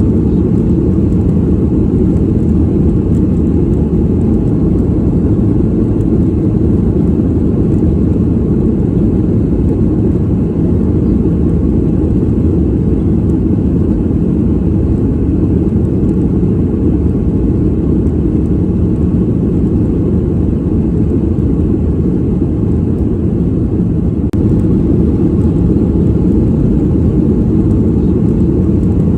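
Steady airplane cabin noise heard from a passenger seat: an even, deep rumble of engines and airflow, unchanging throughout.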